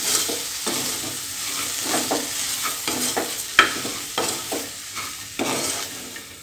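Wooden spatula stirring and scraping broken rice and sautéed vegetables around a pressure cooker pan over a steady sizzle of hot oil, in irregular strokes, with one sharper scrape about three and a half seconds in.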